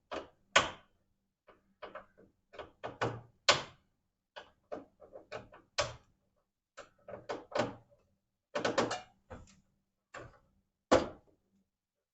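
Irregular sharp clicks and knocks, in clusters with short gaps, from hands and tools working on the wiring and terminals of a fire alarm panel being dismantled.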